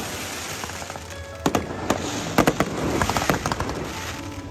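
Aerial fireworks bursting, a cluster of sharp bangs from about one and a half to two and a half seconds in over a steady hiss, with the show's music playing underneath.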